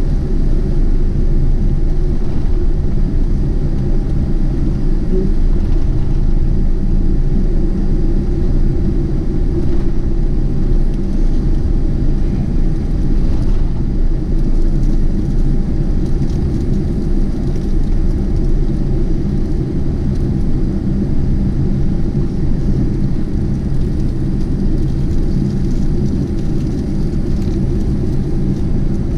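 Steady low rumble with a faint steady whine inside the cabin of a Lufthansa Boeing 747-8 on the ground after landing.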